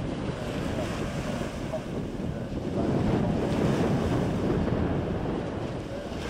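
Wind buffeting the microphone, an uneven low rumbling rush, over the wash of water along the shore.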